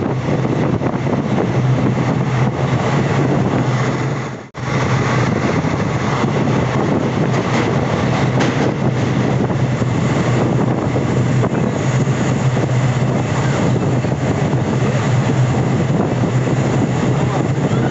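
Passenger train running along the line: a steady noise of wheels on rails with a low, even hum underneath, cutting out for a moment about four and a half seconds in.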